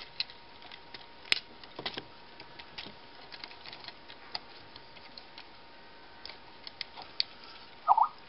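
Hard plastic parts and joints of a Transformers Human Alliance Bumblebee toy figure clicking and snapping irregularly as they are folded and rotated by hand. One sharp click comes a little over a second in, and a brief louder sound comes near the end.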